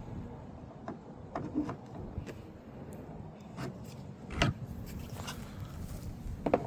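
Scattered light plastic clicks and knocks, about half a dozen, the loudest about four and a half seconds in, as 3D-printed accessories are dropped and seated onto a plastic clip bracket on a poly stock tank.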